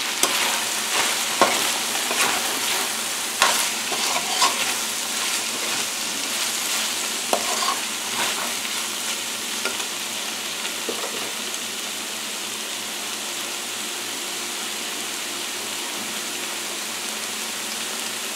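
Chicken, bell peppers, onion and scallions sizzling in oil in a frying pan, nearly cooked, with a metal spoon scraping and clicking against the pan as they are stirred. The stirring strokes fall mostly in the first half; after that the steady sizzle goes on alone.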